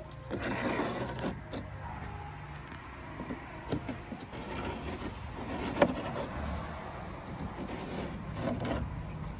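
A wooden block scraped and rubbed back and forth along the wooden planks of a boat hull, in bouts of rasping strokes, with one sharp knock about six seconds in.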